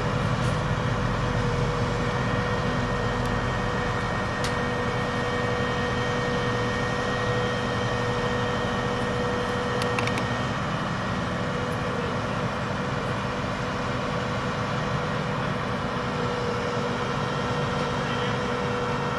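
Boom truck's engine running steadily at low revs, with a constant hum and an even whine over it, and a few faint clicks.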